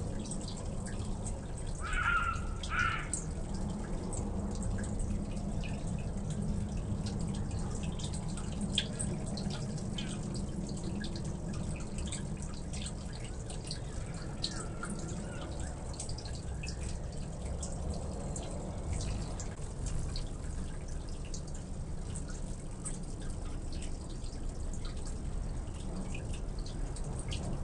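Steady low rumble with many light, scattered ticks like dripping, and two short high chirps about two seconds in.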